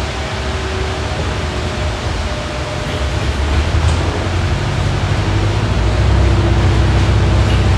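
Inside a hybrid double-decker bus on the move: a steady drivetrain rumble with a faint whine and tyre hiss from a wet road. The low rumble builds about five seconds in as the bus pulls harder.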